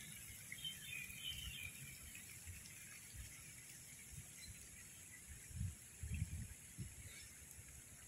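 Evening outdoor ambience: a steady high-pitched insect drone, with a few faint bird chirps in the first couple of seconds. Low rumbling bumps on the microphone come around six seconds in.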